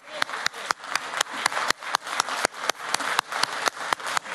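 Audience clapping in unison, a steady rhythm of about four claps a second, over a haze of crowd noise.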